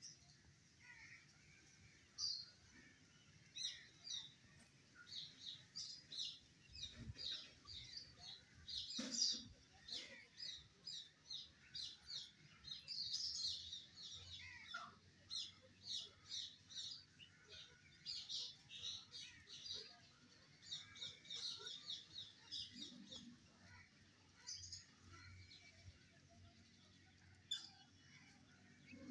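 Birds chirping: many short, high chirps in quick runs that come and go through the whole stretch, fairly faint, with a single soft knock about nine seconds in.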